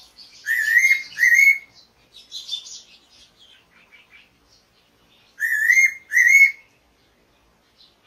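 Fairy pitta calling: two phrases about five seconds apart, each a pair of short whistled notes that rise and bend, with faint chirps of other birds between the phrases.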